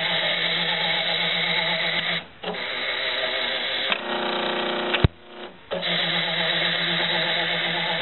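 Motors of a homemade paint-mixing machine running with a steady hum. The sound cuts out for a moment about two seconds in. Around four seconds in it changes to a different motor tone for about a second, then stops with a sharp click and a half-second gap before the steady running resumes.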